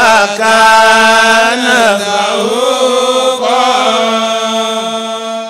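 A man's voice chanting through a microphone, holding long steady notes joined by short melodic turns, and fading away at the end.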